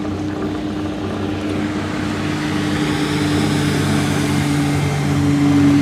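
Minn Kota 34-pound-thrust electric trolling motor running, a steady hum. A lower tone joins about two seconds in, and it grows slowly louder.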